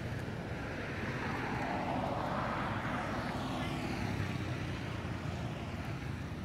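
A passing engine, its broad noise swelling over the first few seconds and then fading, over a steady low rumble.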